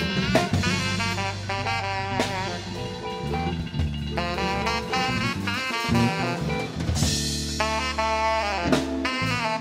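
Live blues band playing an instrumental passage: a bending lead melody over a drum kit and bass, with steady drum hits.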